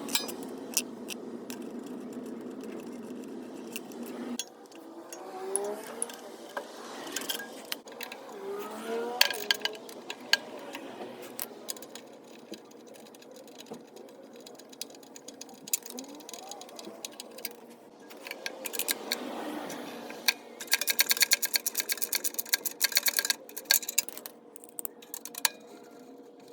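Tools working on a Briggs and Stratton CR950 small engine as it is taken apart: scattered metal clicks and clinks, then a run of rapid, even clicking about twenty seconds in.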